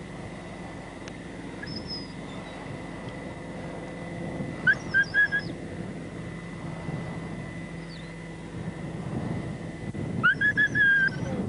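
Two bursts of short, high whistle-like notes, about four in each, the first group about five seconds in and the second near the end, over a low steady rumble.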